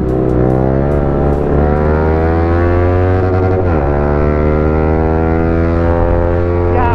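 Motorcycle engine accelerating hard at full throttle, its pitch climbing steadily through a gear. It shifts up with a sudden drop in pitch about four seconds in, then climbs again and shifts once more at the very end.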